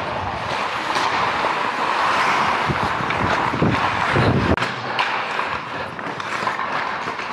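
Ice skates scraping and carving on rink ice, mixed with wind rushing over a helmet-mounted action-camera microphone as the skater moves. A few sharp knocks are heard, and a heavier rumble builds until the sound cuts off suddenly about four and a half seconds in and carries on quieter.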